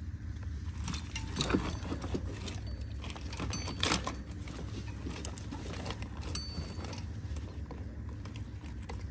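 Scattered metallic clinks and knocks of tools and parts being handled during an engine pull, some with a brief ring, the loudest about one and a half and four seconds in, over a steady low hum.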